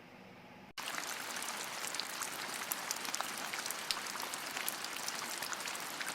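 Steady rain falling, with a dense hiss and many small drop ticks, cutting in abruptly under a second in.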